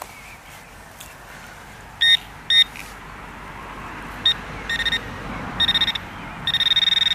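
Metal detector beeping over a buried target: two short single beeps, then bursts of rapid stuttering beeps that grow longer toward the end as the target is homed in on.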